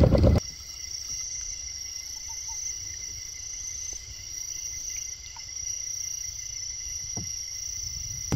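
A boat motor cuts off right at the start, leaving a chorus of insects chirring steadily in a high, even tone.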